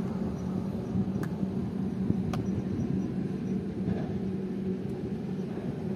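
Steady low rumble of vehicle noise with a constant low hum, broken by a few faint clicks.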